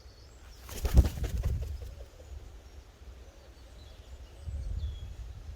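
A released gull's wings flapping as it takes off: a quick run of flaps about a second in, loudest near the start. Wind rumbles on the microphone.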